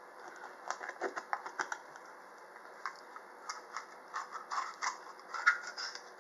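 Oyster shells being handled for shucking: irregular sharp clicks and scrapes of shell against shell and the board, the loudest about five and a half seconds in.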